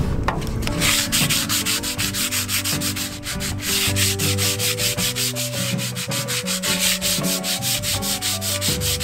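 Hand sanding with a folded sheet of sandpaper on the red oxide primer of a steel boat deck, in rapid, even back-and-forth strokes. The paint is being keyed between primer coats.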